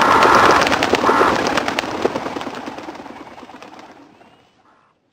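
A mass of birds: a dense rapid clatter of flapping wings with harsh bird calls in the first second or so, the whole fading out steadily to silence over about four seconds.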